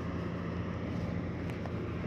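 Diesel engine of heavy earthmoving machinery running steadily under work, a constant low drone with a faint tick about a second and a half in.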